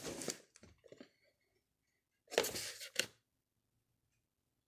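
Packaging and small items being handled: a short rustle and crinkle at the start and a few small clicks, then about two seconds in a louder burst of rustling with two sharp knocks about half a second apart.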